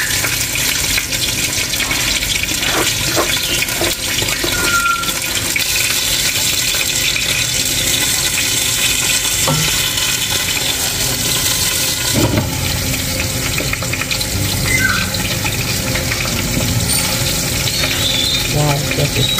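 Steady hiss and bubbling of water heating in a large aluminium pot on a gas flame as basmati rice is tipped in and stirred with a metal ladle. A few brief knocks of the ladle against the pot are heard.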